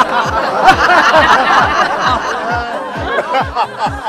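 A crowd of men and women laughing heartily together, with scattered hand claps and a steady low drumbeat about three times a second underneath.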